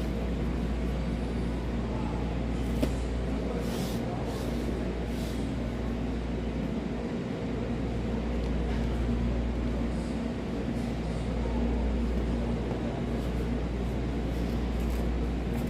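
Steady low rumble and hum of a supermarket's background noise, with a few faint knocks scattered through it.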